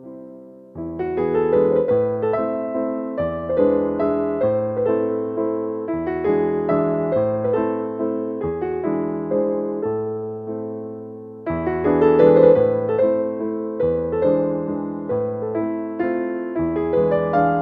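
Gentle piano music: a flowing phrase of quickly struck notes with bass notes beneath, starting again about a second in and once more past the middle.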